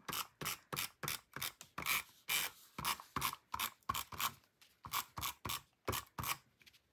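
Handheld tape runner laying adhesive along the edge of a paper panel: a quick run of short ratcheting clicks, several a second, as the tape is rolled off.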